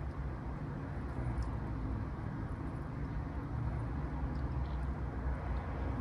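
Steady low background rumble with no distinct events, and a few faint high ticks above it.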